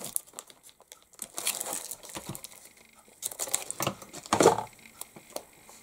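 Crinkling and tearing of red liner double-sided tape and its backing as a strip is pulled off and pressed onto cardstock, in a few short bursts, the loudest a little past halfway.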